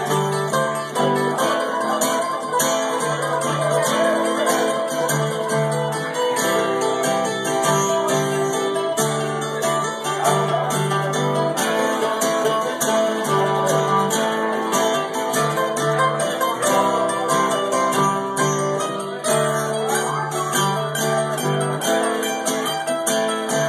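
Mandolin and acoustic guitar playing an instrumental passage: the mandolin picks a lead over the guitar's strummed chords, with no singing.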